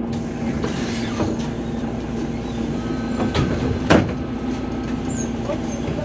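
Interior of a MAZ 203.065 city bus under way: the engine hums steadily over road rumble and rattles, with a sharp knock about four seconds in.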